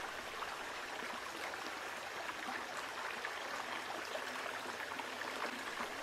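Steady rushing of a small river flowing over its bed, an even hiss with no breaks.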